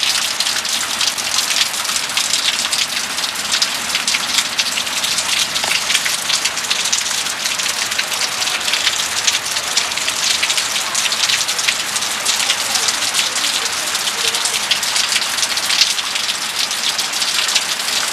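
Heavy rain pouring steadily and pattering on surfaces, a dense hiss of countless drops.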